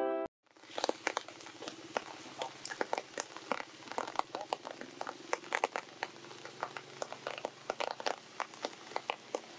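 Many soft, irregular clicks and crackles, several a second, over a faint steady low hum.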